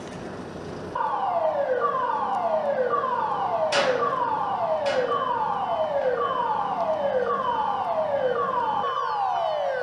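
A siren starts about a second in, sweeping down in pitch over and over, roughly once a second. Two short sharp sounds cut across it midway.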